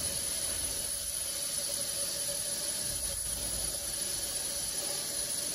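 Steady rushing hiss of air from artificial-respiration equipment in an intensive care room, with a faint high steady tone over it.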